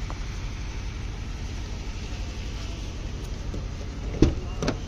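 Low, steady rumble of an idling vehicle engine, with two short knocks near the end.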